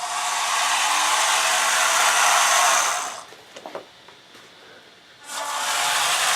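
Brass dual-ratio gearboxes in an RC tank lower hull, driven by 360 electric motors, running with a steady whir. They stop about three seconds in and start running again about five seconds in.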